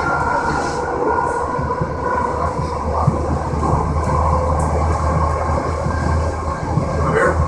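Interior of a VTA light-rail car running at speed: a steady rumble of wheels on track with a steady whine from the running gear. A short rising sound comes near the end.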